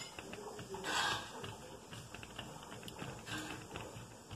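Hands pressing pizza dough flat in a pan, making light irregular clicks and taps, with two brief swishes: one about a second in and one near the end.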